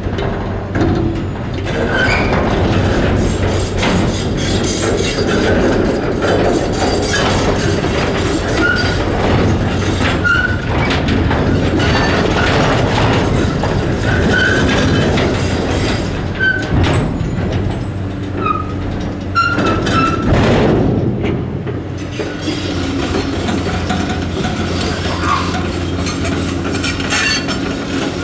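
A Caterpillar 345C excavator's diesel engine runs steadily under load while its demolition grapple drops and shifts scrap metal into a steel container. Repeated metal clanks and scraping come with short, high metal squeals.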